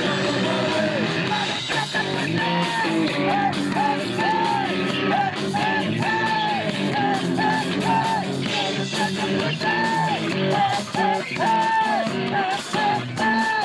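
Punk rock band playing live, with electric guitar, drums and a yelled vocal line in repeated phrases.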